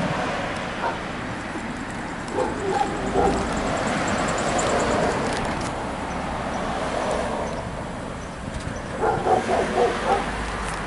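A dog barking: a few short barks about two and a half seconds in, then a quick run of about five near the end, over steady outdoor background noise.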